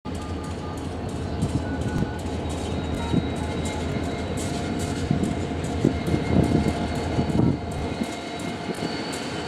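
Diesel freight train approaching, led by an EMD SD60I locomotive: a steady low rumble of engines and rolling cars, with scattered sharp clicks and clanks from the rails.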